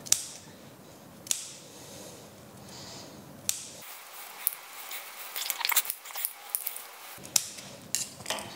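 Scissors cutting through the backing of a piece of faux fur. It is a series of sharp separate snips, with a quicker run of small crisp snips in the middle.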